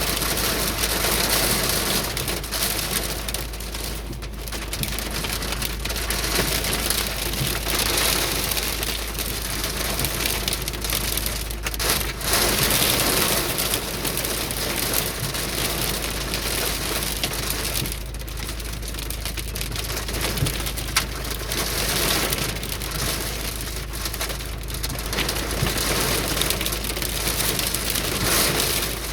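Heavy rain mixed with hail pelting down, a dense clatter of hard impacts under the hiss of the downpour, swelling and easing every few seconds.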